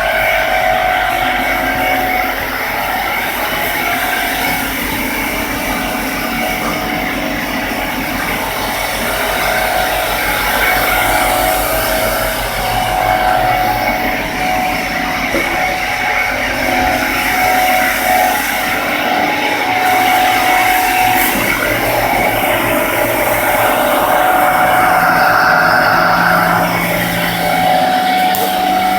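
CNC milling machine running: a steady mechanical whine with pitched tones that break off and return every few seconds as its motors work.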